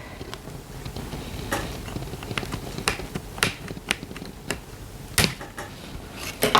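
Hands handling a doll outfit and its packaging up close: a low rustling with scattered sharp small clicks, about seven of them at irregular intervals.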